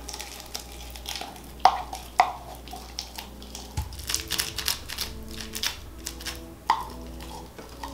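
Sticky lemon poppy seed slush slime being squeezed out of its jar and pressed into a bowl of mixed slime, making a string of small wet clicks and pops. Soft background music comes in about halfway through.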